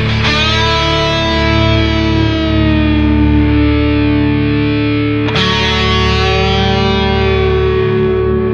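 Music: distorted electric guitar through effects, chords struck near the start and again about five seconds in and left to ring out over a steady low drone.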